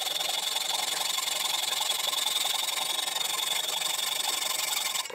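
Hacksaw cutting through a metal bar held in a lathe chuck: rapid back-and-forth strokes making a steady rasping hiss with a high ringing edge, stopping right at the end.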